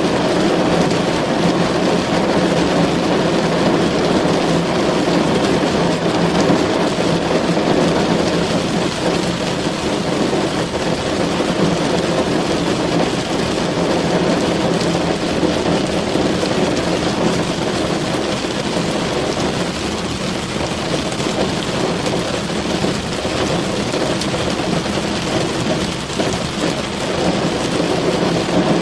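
Steady heavy rain drumming on a car's roof and body, heard from inside the cabin as a dense, even patter.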